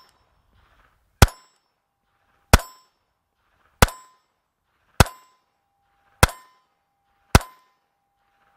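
Mauser HSc pistol in .32 ACP (7.65 Browning) firing six shots at an even pace, about one every 1.2 seconds, each a sharp crack with a short ring-off.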